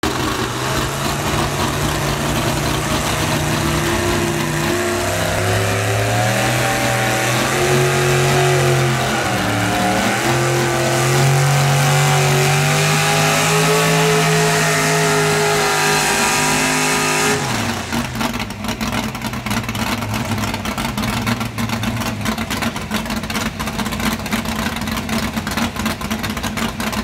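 Motor vehicle engines running, one engine's pitch stepping up and down as it is driven. About 17 seconds in that engine's tone stops suddenly, leaving a rougher, crackling engine sound at a lower level.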